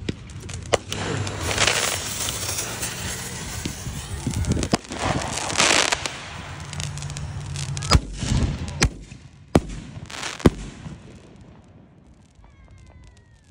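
5-inch firework canister shells fired from mortar tubes. After a sharp crack within the first second comes several seconds of loud rushing noise with surges as the shells go up. Then four sharp bangs, less than a second apart, as the shells burst overhead.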